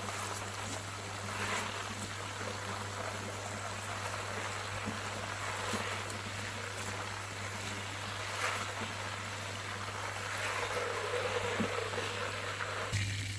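Chopped chicken pieces deep-frying in hot oil in a wok: a steady sizzle, with a low steady hum underneath. The sizzle cuts off suddenly near the end.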